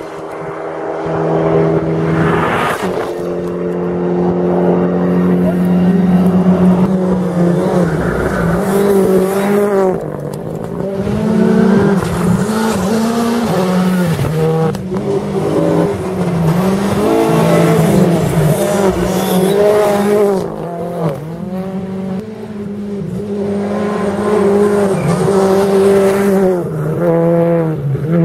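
Rally car engines on a gravel stage, revving hard and falling back again and again through gear changes and lifts, with the rush of a car passing close early on.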